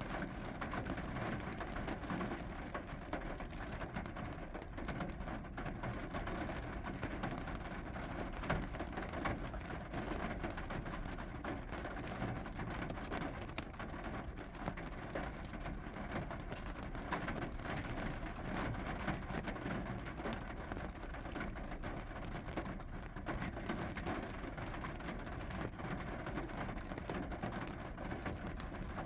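Steady rain falling, a dense continuous patter of drops.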